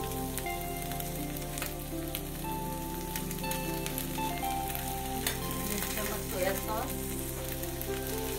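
Onion and capsicum sizzling in oil in a kadhai over a high flame, with a few light metallic clicks of a spoon or ladle against the pan.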